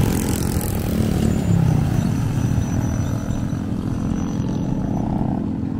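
A small motorcycle going past on the road, its engine note shifting in pitch over the first two seconds, then settling into a steady low drone.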